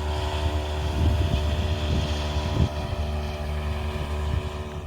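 Wind buffeting the microphone: a steady low rumble with a few stronger gusts, under a faint steady hum.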